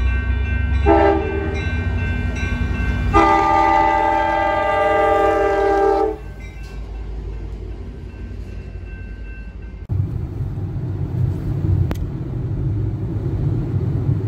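A horn sounding a chord of several tones: a short blast about a second in, then a long blast of about three seconds. Under it runs a steady low rumble that gets louder about ten seconds in.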